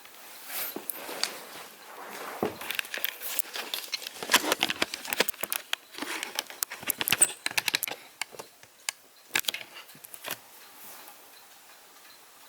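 A dense run of irregular clicks and crackles, like objects being handled, stopping about ten and a half seconds in.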